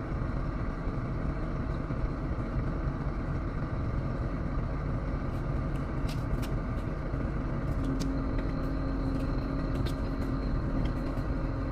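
Diesel engine of an excavator running steadily, with sharp clicks and knocks from about halfway through and a steady pitched hum that joins about two-thirds of the way in.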